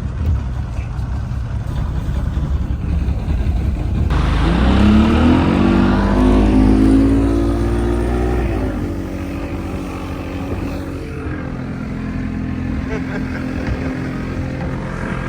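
Small boat's outboard motor running under way: it speeds up about four seconds in, holds a higher pitch, then eases back to a lower steady running note.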